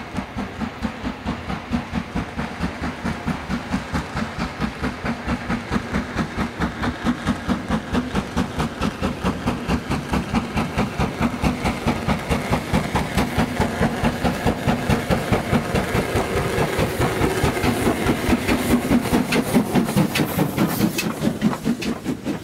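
Steam locomotive working under steam: a fast, even beat of exhaust chuffs with some hiss, growing louder and peaking near the end.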